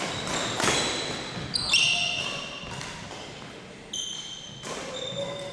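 Badminton rally: sharp racket hits on a shuttlecock, with sneakers squeaking on the hardwood gym floor twice, about a second and a half in and again near four seconds.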